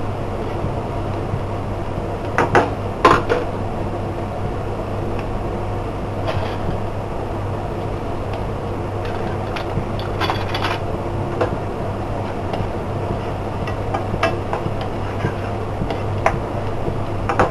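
Finely chopped onion frying in oil in a non-stick pan, being softened, over a steady low hum. A spatula scrapes and knocks against the pan now and then, loudest about three seconds in.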